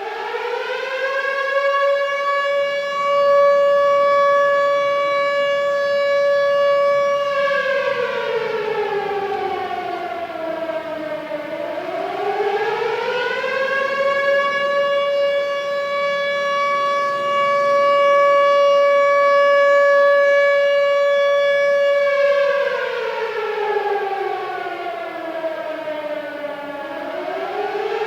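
Air raid siren wailing: it climbs to a steady high pitch and holds it, sinks low about eleven seconds in, climbs back and holds again, then sinks once more and starts climbing near the end.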